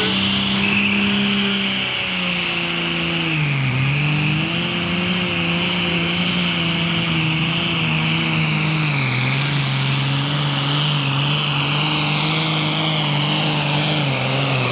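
Allis-Chalmers D-21 pulling tractor's six-cylinder diesel engine running flat out on a pull, with a high steady whistle above the engine note. The engine's pitch sags a few times, around two, four and nine seconds in, as the load drags it down, and each time it recovers.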